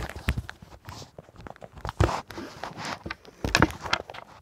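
Handling noise of a phone being fumbled: irregular knocks and rubbing against a hand and a jacket, with a sharp knock at the start, another about two seconds in and a quick cluster of knocks near the end.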